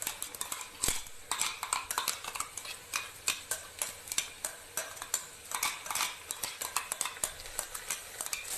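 A metal spoon clinking and scraping against metal cookware in a quick, irregular run of clicks, as coarsely ground whole spices are tipped into the pressure cooker and stirred in.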